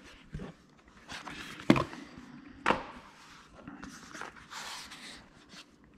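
Book-style cardboard earphone box being opened and handled: soft rustling and scraping of card and paper, with two sharp taps about a second apart near the middle.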